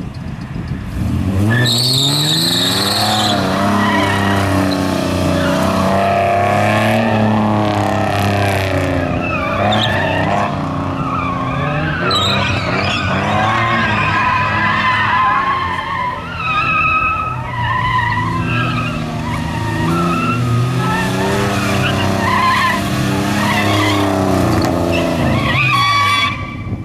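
Nissan Skyline's engine revving up and down repeatedly as the car is driven hard through a slalom, with tyres squealing through the turns. There is a loud high tyre squeal about two seconds in, and the engine note drops away near the end.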